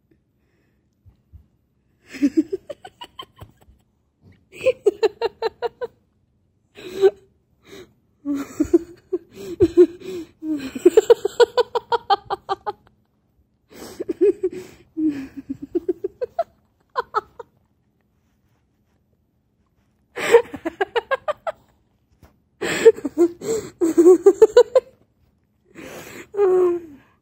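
A person laughing hard in repeated bouts of rapid ha-ha pulses, with a pause of a couple of seconds about two-thirds of the way through.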